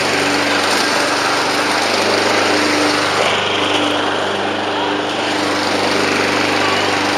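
Gasoline lawn mower engine running steadily under load while mowing weeds.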